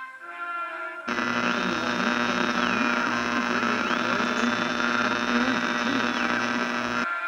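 Harsh electronic noise: a loud buzzing hum with static starts abruptly about a second in and cuts off sharply near the end. Over it, a high whistling tone twice rises, holds and falls back.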